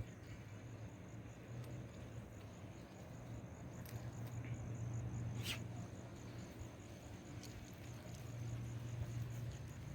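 A steady high-pitched insect trill, pulsing evenly, over a low steady rumble, with a few faint clicks.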